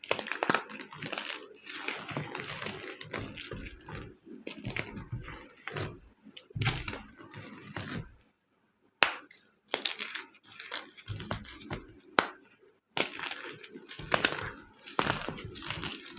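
Homemade gym chalk being crushed and crumbled: a run of dry crunches and crackles, with brief pauses about eight and twelve seconds in.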